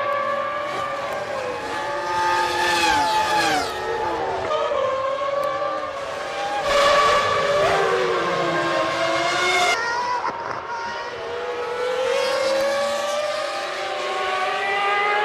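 Several 1999 Formula One cars' 3.0-litre V10 engines running at high revs. Their pitch falls and rises, overlapping, as the cars brake, change gear and accelerate.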